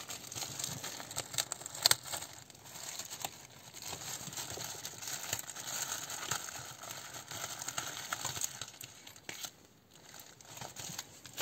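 Clear plastic bag crinkling and rustling as it is opened and handled and the car stereo's wiring-harness plugs are pulled out, with scattered small clicks and one sharp click about two seconds in.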